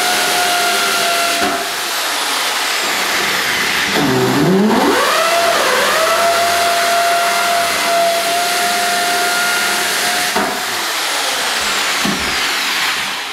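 Electric hammer drill boring an anchor hole into a wall, its motor whine steady, dropping in pitch about four seconds in as the bit loads up and then recovering. It stops near the end.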